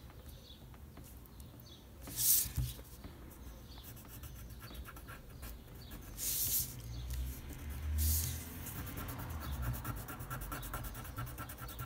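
Graphite pencil scratching on paper as lines are drawn, the strokes denser and steadier in the last few seconds. Three short, loud hissing noises stand out, about two, six and eight seconds in.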